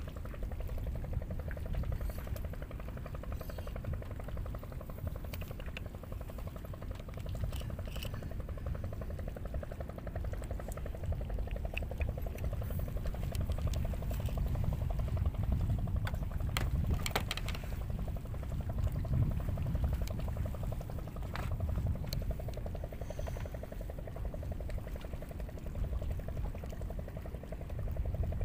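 Seawater lapping and sloshing around the bamboo stilts of a bagan fishing platform, over a steady low rumble, with a few light clicks.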